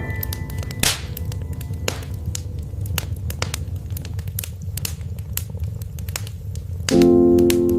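Wood fire in a fireplace crackling and popping over a low rumble, with a couple of louder pops in the first two seconds. A soft piano chord comes in near the end.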